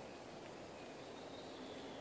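Faint outdoor background hiss with a few faint, thin, high bird calls, one drawn out through the second second.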